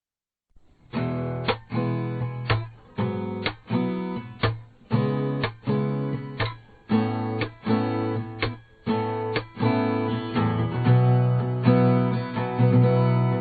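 Acoustic guitar strumming chords in a steady rhythm, the intro of a song, starting about a second in and growing fuller near the end.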